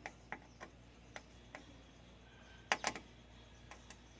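Scattered light clicks and taps of hand tools and metal parts being handled inside a car door, with a louder cluster of knocks a little under three seconds in.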